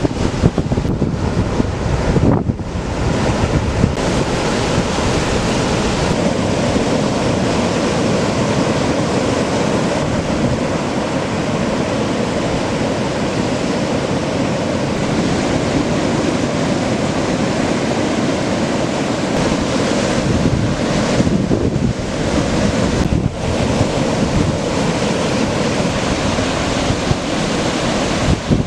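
Heavy ocean surf from a hurricane swell breaking and washing continuously, with wind buffeting the microphone.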